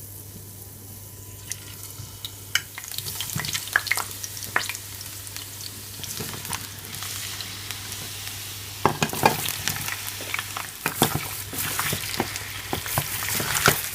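Chopped, rinsed potatoes going into hot olive oil in a glass Pyrex dish, sizzling, with scattered knocks and clinks of potatoes and utensil against the dish. A steady low hum stops about eleven seconds in.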